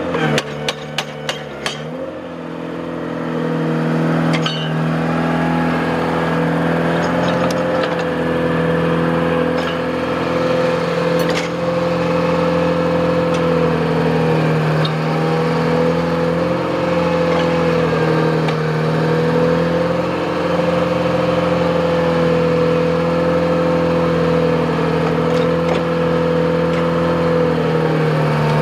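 Koehring 266 excavator's Detroit six-cylinder diesel engine running under load at high revs, with the hydraulic breaker hammer clattering against rock. A few sharp clicks come in the first couple of seconds, then the engine picks up and holds a steady, loud drone.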